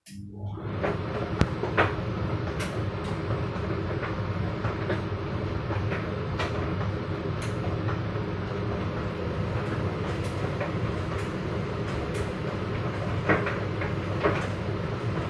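Front-loading washer-dryer running with a steady motor hum and drum rumble, with scattered light clicks and knocks from the turning drum. It comes in abruptly at the start and stays steady throughout.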